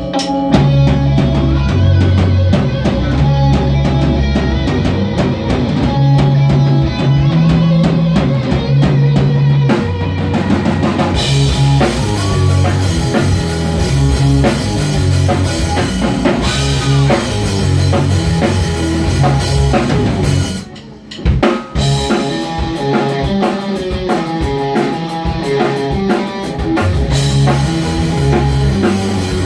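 Live rock band playing an instrumental passage: electric guitar over drum kit and bass. The band drops out for about a second roughly two-thirds of the way through, then crashes back in.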